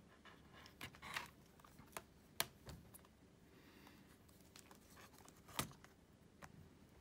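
Near silence with a scatter of faint clicks and light taps from handling the opened laptop's keyboard and casing, the sharpest about two and a half seconds in and another about five and a half seconds in.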